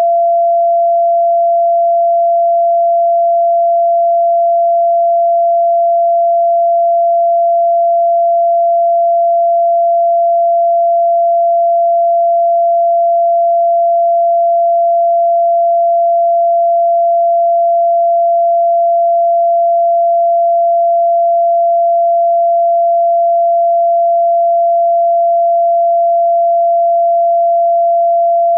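A pure sine-wave tone held steady at about 683 Hz (682.85 Hz), the fourth-octave F in a 432 Hz tuning.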